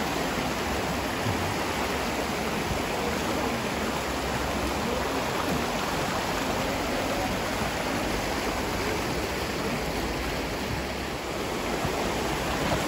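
A small river flowing, a steady rushing of water.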